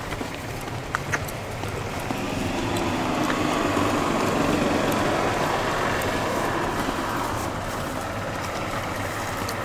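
A car driving past on the street: its tyre and engine noise swells to a peak about four to five seconds in, then fades away.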